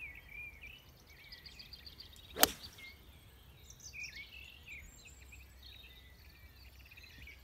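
A 7-iron striking a golf ball on a full swing: one sharp crack about two and a half seconds in, with birds chirping faintly throughout.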